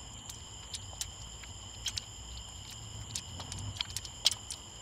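Light, irregular metal clicks and clinks as cam followers (rocker arms) are lifted out of a Chrysler Pentastar 3.6L V6 cylinder head and gathered together in a gloved hand, with one sharper click near the end.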